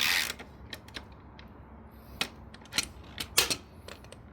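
Tools and metal parts being handled at a motorcycle's front axle during wheel removal: a short rasp at the start, then a few separate sharp clicks and knocks.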